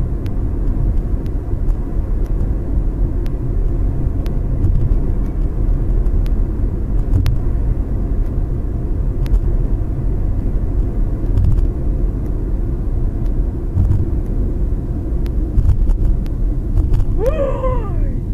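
Steady low rumble of a car's tyres and engine heard inside the cabin while driving. Near the end, a short vocal exclamation rises over it.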